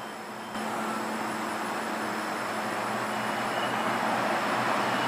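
Outdoor road traffic noise: a steady hiss that steps up about half a second in, then slowly grows louder.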